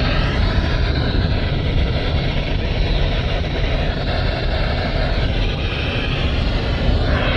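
Loud, steady hiss and static from a NOAA weather radio receiver with poor reception.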